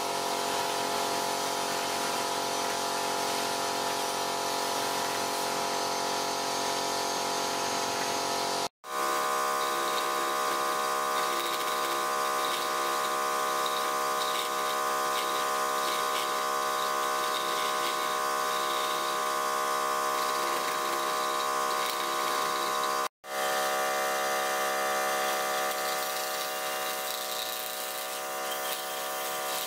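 Wood lathe running with a steady motor hum while a flat chisel cuts the spinning wood. The sound cuts out abruptly for an instant twice.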